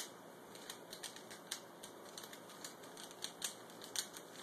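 Plastic Dayan Zhanchi 3x3 speedcube being turned by hand: quick, irregular light clicks and clacks of the layers, a few louder than the rest.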